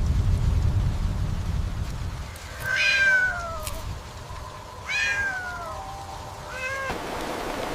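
A cat meowing three times: two drawn-out meows that fall in pitch, then a short one, over a low rumble.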